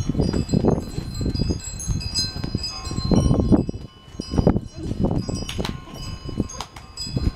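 Wind chimes ringing, many high metallic tones overlapping and ringing on, over a low, uneven rumble.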